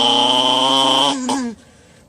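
A man imitating a car engine with his mouth: a steady, buzzing engine drone held high, which drops off about a second in with a short downward slide and stops.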